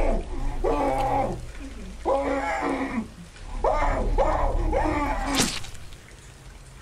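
Muffled, wordless cries from a bound man gagged with an apple, five or six strained calls in a row, several sliding down in pitch at the end. A single sharp sound cuts in near the end, after which the cries stop.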